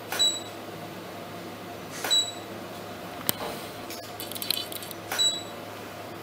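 Camera shutter firing three times, about two to three seconds apart, each shot followed at once by a short high electronic beep, over a steady low hum. A single sharp click and a brief light rattle fall between the second and third shots.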